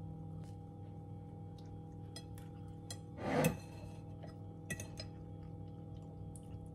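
Soft background music of held tones, with a fork clinking against a plate a few times and a short, louder scrape of the fork about three seconds in.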